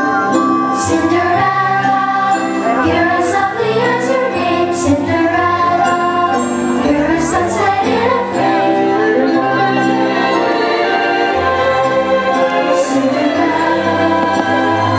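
Music from the fireworks show's soundtrack: a dense orchestral score with a singing voice carried over it.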